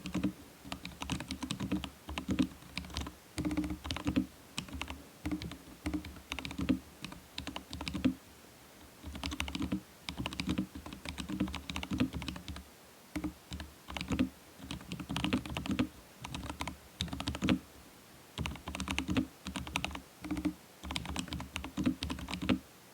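Fast typing on an XD84 Pro custom mechanical keyboard fitted with Gazzew Boba U4T tactile switches: quick runs of keystrokes, each with a low, rounded note under the click, broken by short pauses every few seconds.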